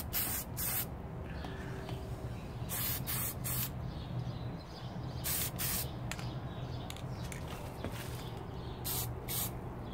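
Aerosol spray paint can sprayed in short bursts, about ten quick hisses in groups of two or three, over a low steady hum.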